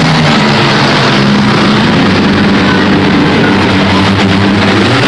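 Demolition derby cars' engines running loud and revving in the arena, several at once, their pitch rising and falling.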